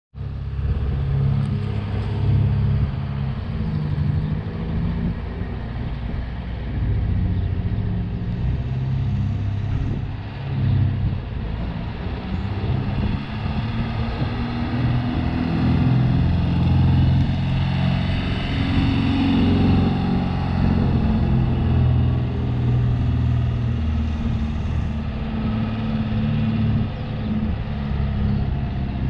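1973 Volkswagen Westfalia bus's air-cooled flat-four engine running as the van drives, its pitch stepping up and down with engine speed and rising higher and louder for a few seconds around the middle.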